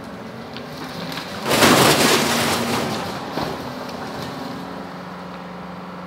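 Skid steer's diesel engine running steadily as it drives through brush, with a loud crunching crash about a second and a half in that fades over a second or so as the machine runs over the ground-mounted GoPro, knocking it over.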